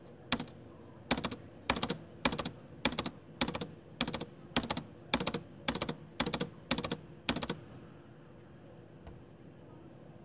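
A regular run of about thirteen short, sharp clicking or crunching sounds, roughly two a second, that stops about three quarters of the way through, over a faint steady hum.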